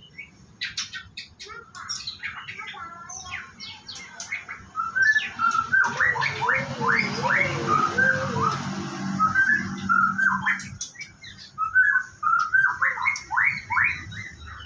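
White-rumped shama (murai batu) singing: a varied run of quick whistled and chattering notes, louder through the middle and again near the end.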